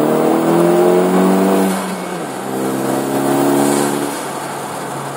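2013 Hyundai Veloster Turbo's 1.6-litre turbocharged four-cylinder accelerating at full throttle through a custom Magnaflow 12886 muffler exhaust, heard through the open driver's window. The note climbs steadily, drops at a gear change about two seconds in, climbs again, then eases off and quiets about four seconds in as the throttle is lifted.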